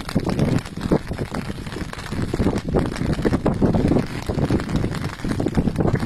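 Wind buffeting the microphone: a low, uneven rush that swells and drops in irregular gusts.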